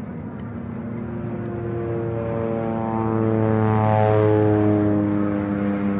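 Jet airliner's engines heard from inside the cabin while the plane moves on the ground: a steady hum of several tones that swells to its loudest about four seconds in, the tones shifting in pitch around that point.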